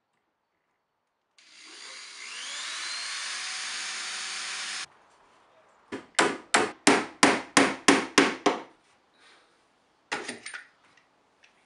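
Cordless drill running into plywood for about three and a half seconds, its motor whine rising as it spins up, then cutting off. Then a claw hammer strikes a nail into the wood about nine times at roughly three blows a second, followed by a few lighter taps near the end.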